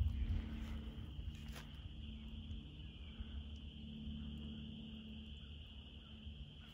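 A faint, steady, high-pitched chorus of calling animals from a marsh, over a low rumble of wind on the microphone.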